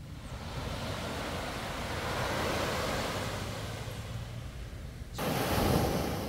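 Small waves breaking and washing up on a sandy beach: the surf noise swells over the first few seconds and eases off. About five seconds in it cuts abruptly to a louder, closer rush of water.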